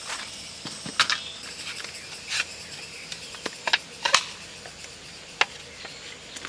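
Camping gear being handled: a plastic storage crate set down and a small wooden folding stool opened out. The result is a scatter of short clacks and knocks, the sharpest about a second in and around four seconds in.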